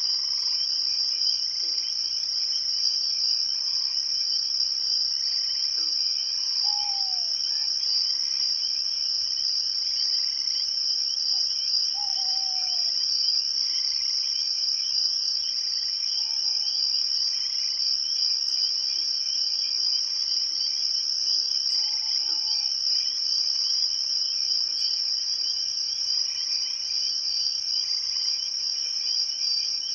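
A night chorus of crickets: a steady, high, continuous trill. A short, higher chirp repeats about every three seconds, and a few brief, lower falling calls come now and then.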